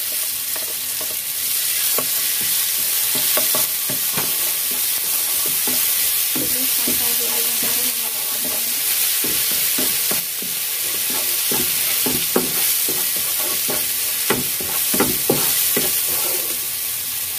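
Ground spice paste of chilli, shallot, garlic, candlenut and turmeric sizzling in hot oil in a non-stick frying pan as it is sautéed, with a wooden spatula scraping and tapping against the pan, more often in the second half.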